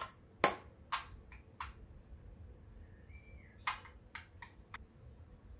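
About eight small sharp clicks and taps of a toy Remembrall being handled and fitted into its light-up stand, in two clusters, the loudest about half a second in.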